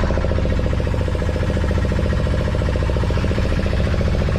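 Fishing boat's engine running steadily, with a fast, even chugging pulse.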